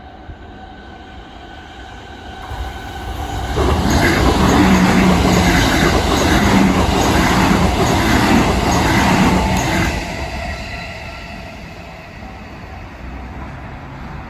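A JR Fukuchiyama Line electric train passes through a level crossing. It grows louder about two seconds in, is loudest for about six seconds with the wheels clattering over the rail joints in an even rhythm, then fades away. The crossing's warning bell rings steadily throughout.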